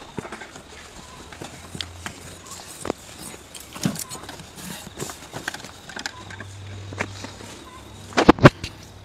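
Skinning work on a hanging beef carcass: a knife and hands working the hide, giving scattered clicks and knocks, with a quick run of several loud knocks near the end.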